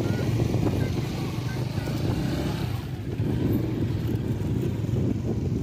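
Motorcycle engine running steadily at low speed, a rough rumble that swells a little now and then.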